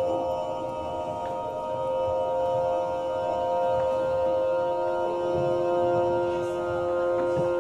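Ambient drone music: several steady tones held together without a beat, with a lower tone joining about five seconds in.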